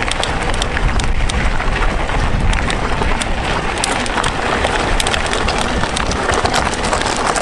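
Mountain bike rolling over a gravel trail: steady tyre and wind noise with many small sharp clicks and rattles from stones and the bike.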